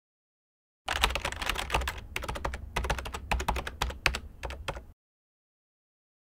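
Computer keyboard typing: a quick, uneven run of key clicks that starts about a second in and stops about five seconds in.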